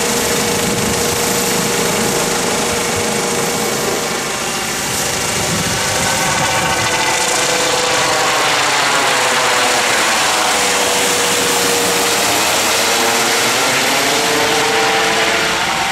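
Eurocopter EC135 P1 helicopter, with twin Pratt & Whitney turbines and a Fenestron tail rotor, flying low overhead and away: steady rotor and turbine noise with a steady whine and a shifting, phasing sweep as it passes over. It begins to fade right at the end.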